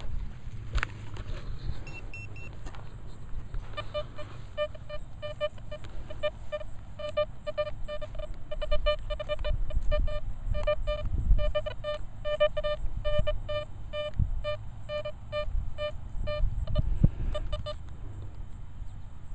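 Nokta Velox One metal detector giving repeated short beeps of one mid-pitched tone, two or three a second and uneven, as its coil passes over a freshly dug hole, signalling small bits of metal still in the soil. The beeps sit over a low rumble. In the first few seconds, dirt is scraped with a digging tool.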